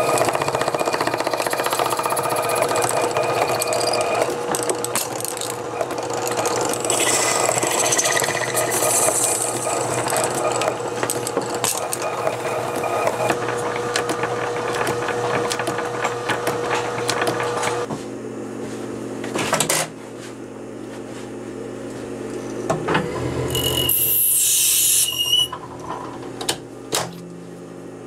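Small lathe running with a steady motor hum while a hand scraper shaves a spinning fountain-pen barrel, a rough scraping over the hum. About two thirds of the way through it cuts off abruptly to a quieter machine hum, with a short high-pitched cutting screech and a few clicks near the end.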